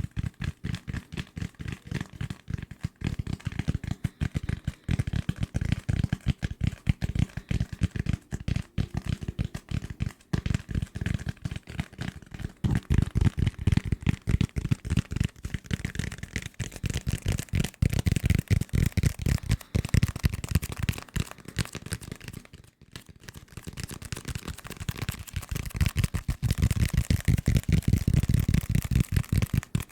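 Fast, dense tapping on assorted desk objects, many taps a second, with a brief pause about 23 seconds in.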